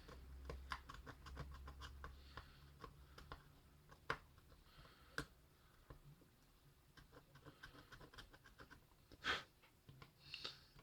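Near-quiet bench work: faint, irregular clicks and scratches of small hand tools on a circuit board, with one short hiss about nine seconds in.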